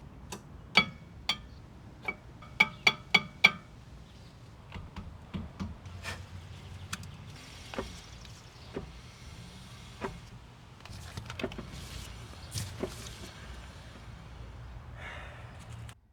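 Rear brakes of a Tesla Model Y giving irregular sharp metallic clicks with a brief ring, several in quick succession over the first few seconds, then sparser and softer, over the low hum of the car moving. The noise has persisted through cleaning and burnishing of the brakes.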